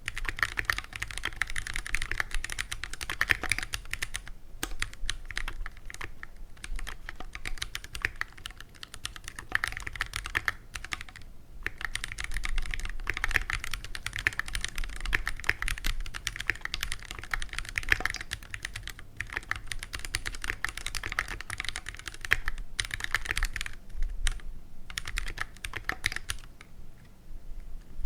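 Fast continuous typing on a stock Keychron Q1 mechanical keyboard with linear Phantom Red switches: a dense stream of key clacks, with a few brief pauses between bursts.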